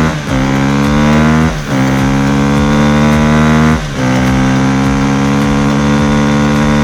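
Car engine accelerating through the gears: the pitch climbs steadily, then drops at each gear change, near the start, about a second and a half in, and about four seconds in.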